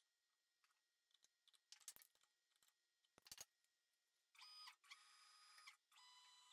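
Faint clicks and taps, then from about four seconds in three short spells of high, steady whine from a CNC router's stepper motors as the gantry moves the spindle into position.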